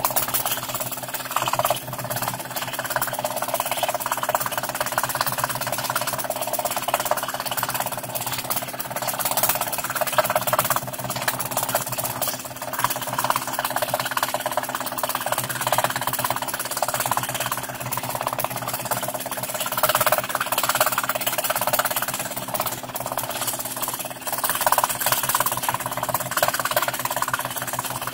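Scroll saw running, its blade stroking rapidly up and down as it cuts fretwork in thin plywood, over a steady motor hum; the cutting noise swells and fades as the work is fed.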